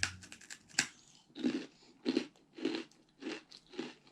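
A thin, crunchy cracker bitten with a sharp snap, then chewed with regular crunches, a little under two a second.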